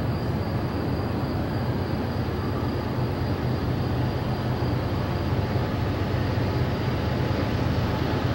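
Steady low rumble of a CSX freight train's diesel locomotives, led by a GE ES44AH, as the train approaches from far down the line.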